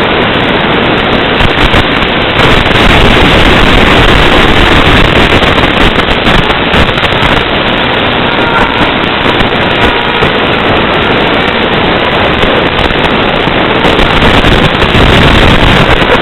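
Loud, steady static hiss from an FPV video downlink's audio channel, with no engine or motor tone standing out.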